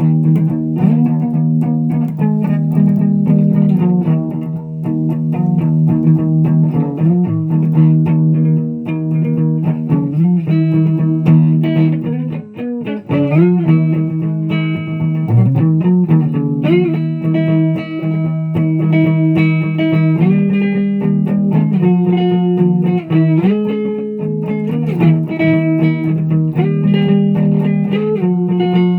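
Instrumental music: a guitar playing held notes, with pitch slides about halfway through. There is no singing.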